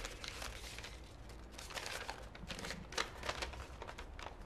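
A folded sheet of paper being opened out and handled, crinkling in a few quick crackles around two and three seconds in, the sharpest about three seconds in.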